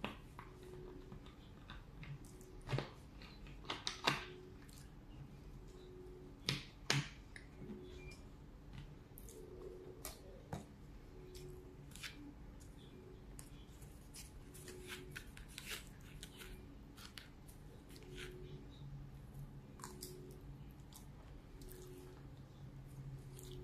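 Eating sounds: spaghetti with meat sauce being chewed, with sharp clicks and scrapes of a plastic fork against a disposable plate, the loudest ones in the first seven seconds.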